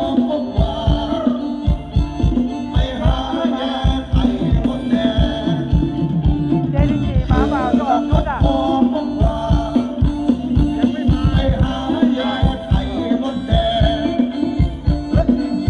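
An amplified live band playing Thai ramwong dance music, with a steady drum beat of about four hits a second under the melody.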